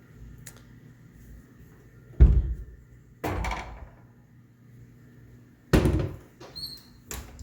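Pantry doors being handled: three solid thuds of doors opening and shutting, the first and last the loudest, then a couple of light clicks with a short squeak of a hinge or latch near the end.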